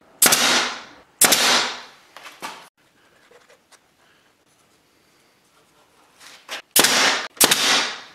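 Bostitch pneumatic nailer firing four shots, in two pairs about a second apart: one pair near the start, the other near the end. Each shot is a sharp bang that tails off over about half a second. Between the pairs come a few light clicks of wood being handled.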